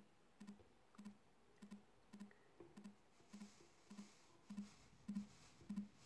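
Salt shaken from a plastic salt container into a plastic soda bottle: faint, regular clicking shakes, a little under two a second, with a brief hiss of salt falling in the middle.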